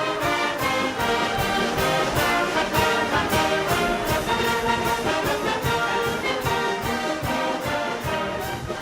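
Brass-led orchestral music with a steady beat of about two to three strokes a second.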